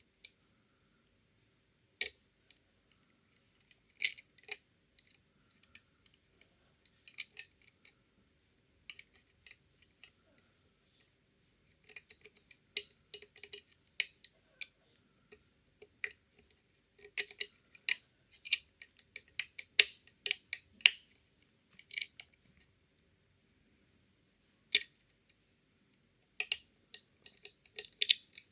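Sharp metal clicks and scrapes from lock picking a five-lever Fichet cabinet lock: the pick lifting the strongly sprung levers against tension, in irregular clusters with pauses between.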